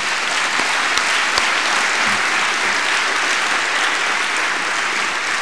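Large audience applauding steadily in a big hall, a dense wash of clapping that eases slightly near the end.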